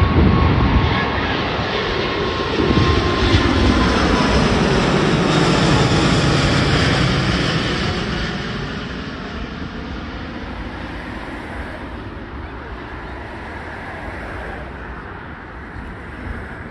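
Four Engine Alliance GP7200 turbofans of an Airbus A380-861 at climb power as the jet passes overhead: a loud roar with a whine that falls in pitch as it goes by. From about eight seconds in it fades steadily as the aircraft flies away.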